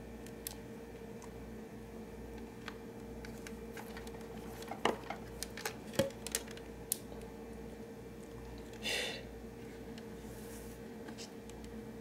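Light handling noise: scattered small clicks and taps, most of them between about four and seven seconds in, as the white wires of a dispenser water tube heater are pushed and repositioned inside the refrigerator's plastic dispenser housing. A brief swish about nine seconds in, over a steady faint hum.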